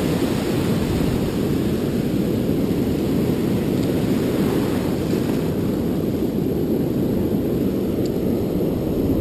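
Steady low rumble of wind buffeting a GoPro microphone, mixed with breaking and washing ocean surf.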